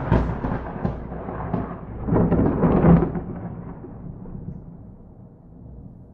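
A rumble of thunder, loud at first, swelling again about two to three seconds in, then fading away.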